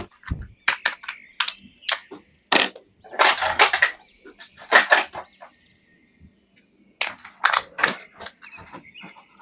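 Plastic toy packaging being handled and opened: irregular crinkles and sharp clicks in short clusters, pausing for over a second past the middle before starting again.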